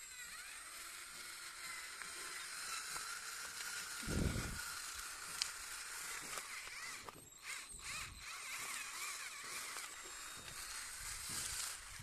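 A 12 V cordless drill drives a homemade PVC chain-drive gearbox and its tyres over rough dirt, the drill motor running with a steady high whine. There is a brief low rumble about four seconds in, and the sound dips several times around seven to eight seconds in.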